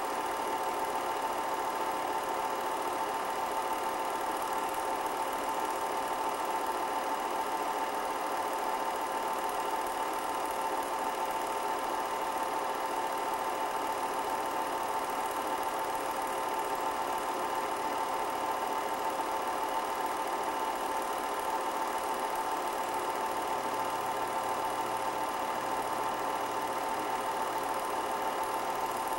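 Steady mechanical whirring with a constant hum, unchanging throughout, typical of a film projector running during the transfer of silent footage.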